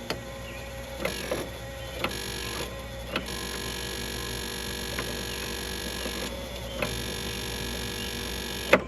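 Steady electrical buzz from the relays under the cowl of a Kubota L3301 tractor with the key switched on, with a few scattered faint clicks. The buzz is part of the tractor's no-start fault, and the owner suspects a short somewhere in the wiring.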